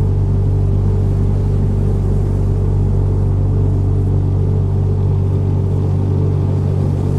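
Deep, steady engine drone of a huge flying warship: a low rumbling hum made of a few unchanging low tones.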